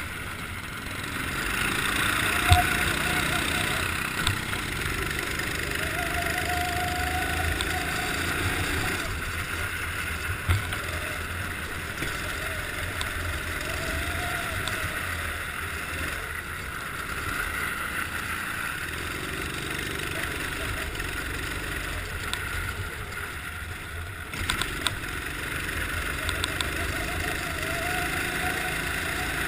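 Racing kart engine heard from a camera mounted on the kart, its pitch rising and falling with the throttle through the corners on ice. A few sharp knocks come through from bumps.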